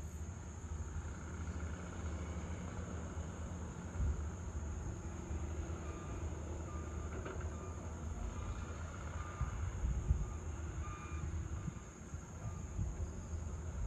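Outdoor evening ambience: a steady low rumble of distant traffic that swells a couple of times, over a constant high-pitched hum. Faint short beeps repeat for several seconds in the middle.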